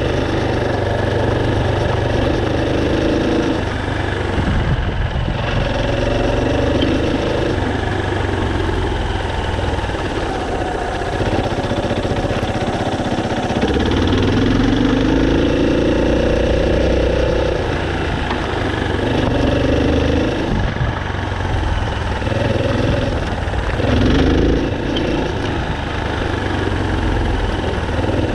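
Off-road motorcycle engine running as the bike is ridden, its pitch rising and falling with the throttle, with a clear climb about halfway through.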